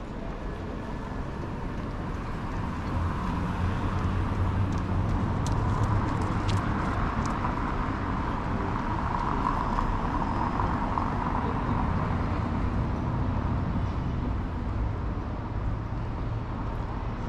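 Outdoor city ambience: a steady hum of road traffic, growing louder through the middle for several seconds before easing off.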